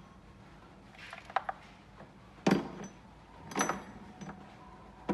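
Several sharp metallic clinks and clicks of hand tools and engine parts being handled while the spark plugs are taken out, each with a short ring; the loudest comes about two and a half seconds in, and another about a second later.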